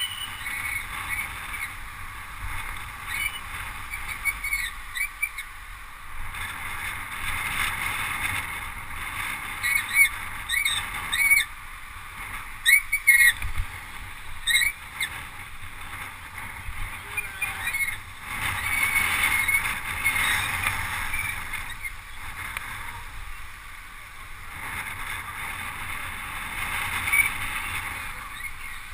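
Wind buffeting and road rush on the microphone of an action camera riding with a bunch of road cyclists. A run of short, sharp high chirps and squeaks comes between about 8 and 15 seconds in.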